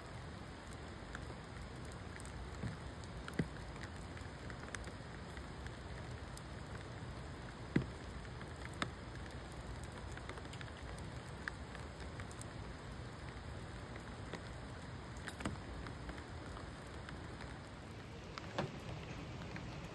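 Rain falling: a steady hiss with scattered sharper drops, the loudest about eight seconds in.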